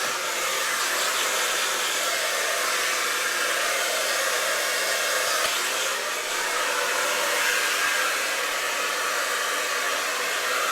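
Handheld hair dryer running on high, a steady rush of air with slight swells as it is moved around the hair.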